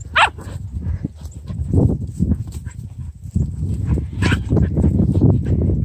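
A dog gives one short, high yip right at the start, over low rumbling and scuffling noise; a brief sharp sound follows about four seconds in.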